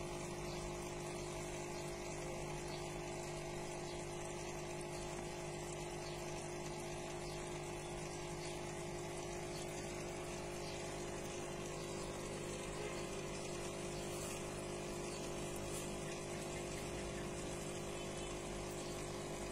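Aquarium water pump running with a steady hum, over a constant wash of moving water.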